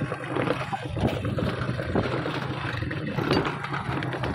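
A vehicle jolting along a rough dirt track: a steady low rumble with many small knocks and rattles.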